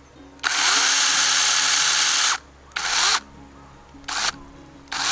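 Kebtek 16.8V cordless handheld mini chainsaw cutting a fallen log, run in bursts: one of about two seconds, then three short trigger blips, each starting with a quick rise in pitch as the motor spins up. Background music plays underneath.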